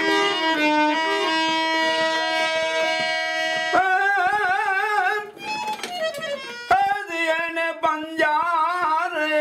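Gujarati devotional bhajan music between sung lines: steady held notes, then from about four seconds in a wavering melody with wide vibrato, with sharp percussion strikes in the second half.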